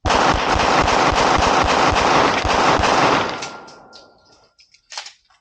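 Rapid gunfire, the shots coming so fast they run together for about three seconds, then stopping and dying away. A single sharp click follows about five seconds in.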